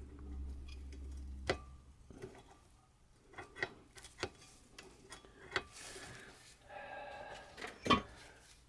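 Light metal clicks and taps of outboard gear case parts being handled as the prop shaft is worked into the clutch dog, with a sharper click about a second and a half in and another near the end.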